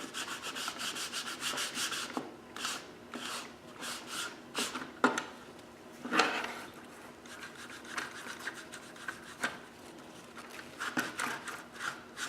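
Scrubbing on an EST SIGA-278 fire alarm pull station as dust is washed off it, in fast, even strokes at first. Then come slower, scattered strokes, with two sharper knocks about halfway through.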